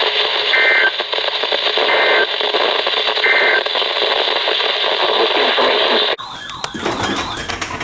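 Weather radio broadcast over a hissy, static-laden signal: three short bursts of warbling digital data tones, about 1.3 seconds apart. These are the SAME end-of-message bursts that close an emergency alert. About six seconds in, the hiss cuts off abruptly and a quieter sound with a wavering high tone follows.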